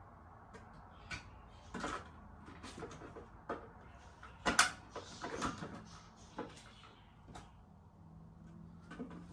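Scattered clicks and knocks of a plastic smoke alarm and its base plate being handled and fitted together, the loudest knock about four and a half seconds in.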